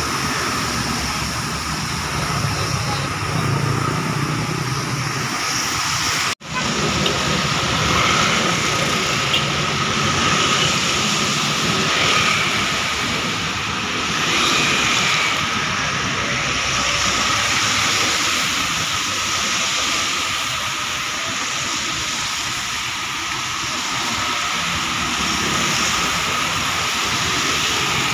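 Road traffic passing on a wet highway: tyres hissing on the wet surface over engine noise, swelling and easing as vehicles go by. The sound cuts out for a split second about six seconds in.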